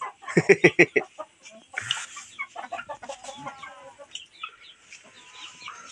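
Chicken clucking: a quick run of about five loud clucks in the first second, then fainter, scattered clucks and calls.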